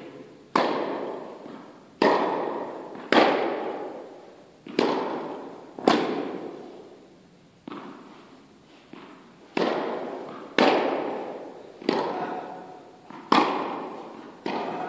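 Tennis rally: sharp pocks of rackets striking the ball, with its bounces on the court, about once every second or so, each ringing out in a long echo in a large indoor tennis hall.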